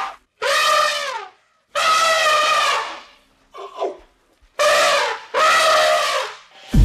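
African elephants trumpeting: about five loud blasts in quick succession, each about a second long or less, the pitch dropping at the end of each. The calls are the herd's alarm and threat at lions close by.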